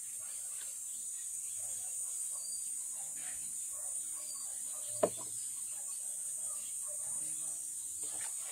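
A wet puppy being scrubbed by hand in a plastic basin of soapy water: soft rubbing and light splashing, with one sharp knock about five seconds in, over a steady high hiss.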